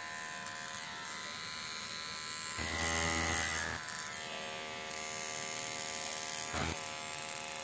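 Baorun P2 pet hair trimmer buzzing steadily as it trims fur on a dog's paw. It grows louder for about a second, around three seconds in.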